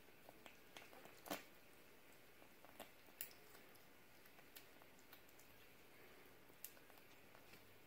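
Five-week-old kitten eating soft solid food from a plate: faint, irregular smacking and chewing clicks, the loudest about a second in.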